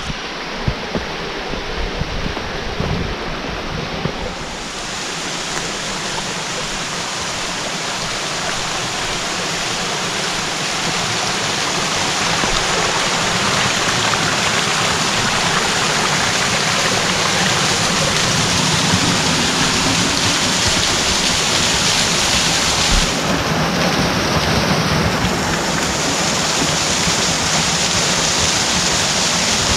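Rushing water of a rocky mountain stream and small waterfall, a steady roar that grows louder over the first dozen seconds as it is approached, then holds.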